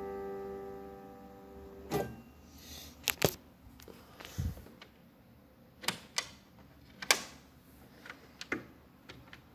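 The last chord of a harpsichord's solo 8-foot choir dying away and cut off about two seconds in with a soft knock as the keys are let go. Then a string of quiet wooden clicks and knocks as the jack rail over the jacks is handled and lifted off.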